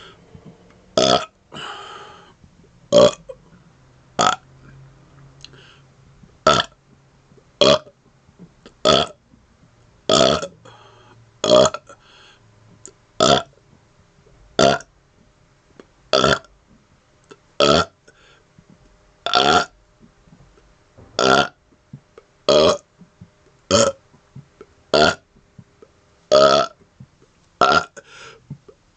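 A man burping deliberately over and over: about twenty short burps, one every second or two, with brief pauses for breath between them.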